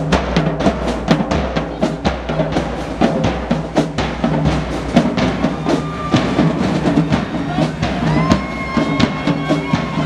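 Marching band playing while it marches past: sousaphones carry low held notes over dense, fast bass drum and snare drum strokes. A held higher tone joins about eight seconds in.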